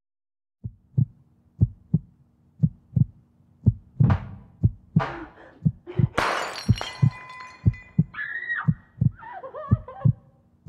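A heartbeat sound effect: low doubled thumps, about one pair a second, over a steady low drone. About six seconds in comes a sudden noisy crash, followed by a high ringing tone and wavering, voice-like sounds near the end.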